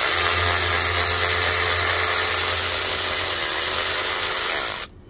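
A power tool spinning a 17 mm socket runs steadily for about five seconds and stops near the end, its pitch wavering briefly after three seconds. It is loosening a front brake caliper bolt.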